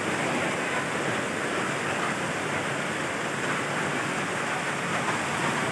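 Muddy floodwater rushing fast across flooded ground: a steady, even rush of water.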